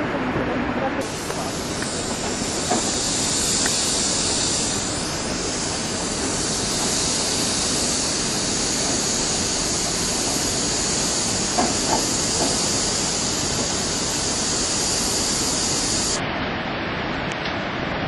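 Rushing water of the Iguazu River's rapids above the falls, a steady, even noise. A strong high hiss lies over it from about a second in and cuts off suddenly near the end.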